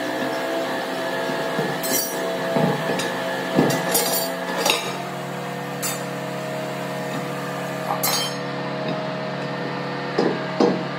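Steel tyre-lever bars clinking and knocking against a truck tyre's steel wheel rim as the tyre is pried off by hand: a scattered string of sharp metal clinks, about seven, one to two seconds apart.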